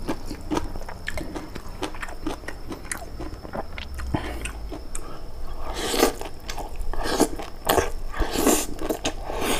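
A person chewing and crunching boiled papaya stems and greens in peanut sauce, close-miked, with many small wet clicks of the mouth; louder bursts of biting come from about six seconds in as a large mouthful goes in.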